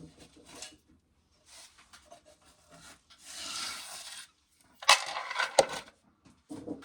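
Dry corn being shelled: kernels rasping and rubbing off the cob, a longer scrape about three seconds in, then two sharp clatters about five seconds in.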